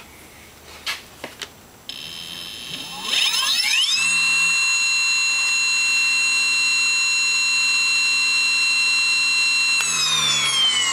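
MAC 2000W lawnmower electric motor spinning up with no load on a 20S battery (about 76 V): a few clicks, then a whine that rises sharply in pitch and holds as a loud steady high whine for about six seconds. Near the end the pitch starts to fall as the motor winds down.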